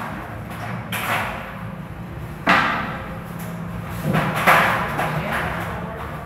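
Aluminium stepladder being moved and set down on a hard floor: about four clanks and knocks, each ringing briefly in the room, over a steady low hum.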